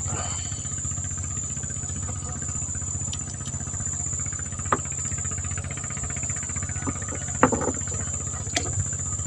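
A small engine running steadily at idle, a low pulsing hum, with a steady thin high whine above it and a few short clicks and knocks about halfway and two-thirds of the way through.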